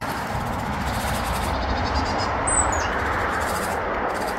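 Steady rushing outdoor noise, with a small bird's short high call about two and a half seconds in; birds are scolding a cat on a lead.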